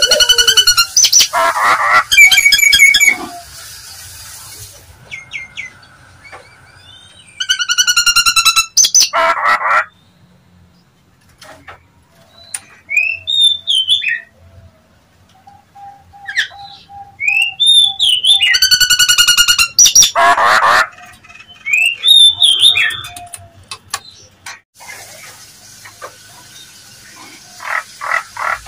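Nias hill myna calling: three bouts of loud, ringing whistled and harsh calls, with softer rising whistles and a short run of even notes in the pauses between them.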